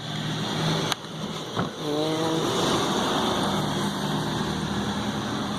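A steady mechanical hum with a rushing noise, like a running air-conditioning unit or a nearby engine, with two light clicks about one and one and a half seconds in.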